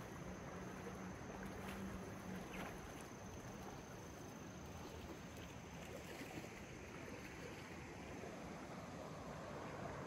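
Shallow rocky creek flowing over riffles: a faint, steady rush of water.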